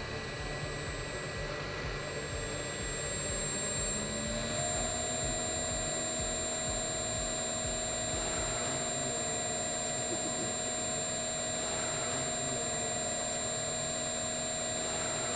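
Electric motor fed by a soft starter running up to speed. Its hum grows louder over the first few seconds and steps up slightly in pitch, then runs steady with a high whine.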